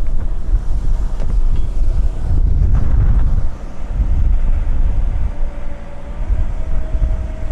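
Strong wind buffeting the microphone over the low rumble of running farm machinery, uneven in loudness, with a faint steady whine coming in about two-thirds of the way through.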